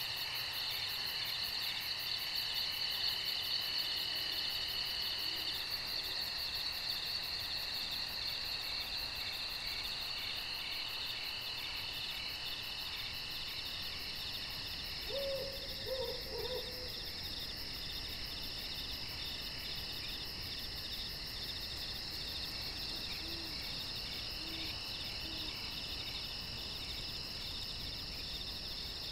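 Night insect chorus: crickets and other insects trilling steadily in several pitched layers, with a fast pulsing very high trill above them. About halfway through, three short low calls come through, then a few fainter ones.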